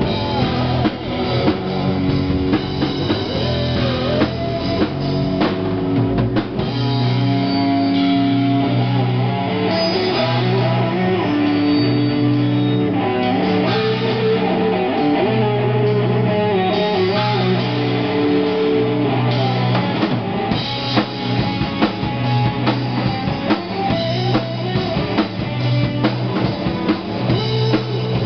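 Live, amplified rock band playing: distorted electric guitar, bass guitar and a drum kit, with repeating bass notes under steady drumming.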